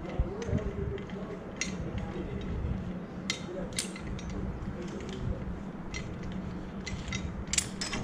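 Lever chain hoist (come-along) being ratcheted to take up tension on an overhead trolley wire: scattered, irregular clicks of the pawl and chain over a steady low hum.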